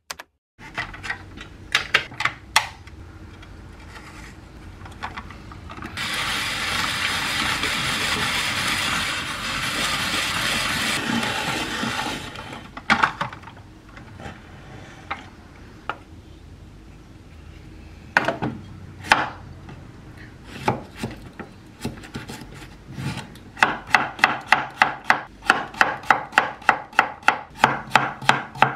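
Kitchen knife chopping cucumber on a wooden cutting board: a quick, even run of strikes, about three to four a second, through the last five seconds. Earlier, a steady rasping of about six seconds and scattered knocks as carrot is cut on a handheld vegetable spiralizer.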